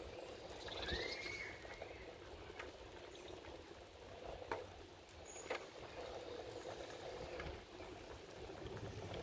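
Faint outdoor park ambience: a steady low hum with a few bird chirps, one about a second in and a short high whistle a little past the middle, and scattered light clicks.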